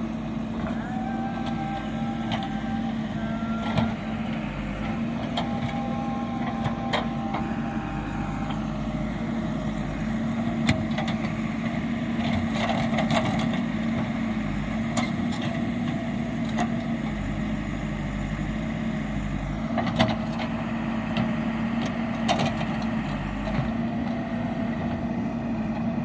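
Backhoe loader's diesel engine running at a steady, even pitch while it grades an earth embankment with its front bucket, with occasional sharp knocks scattered through.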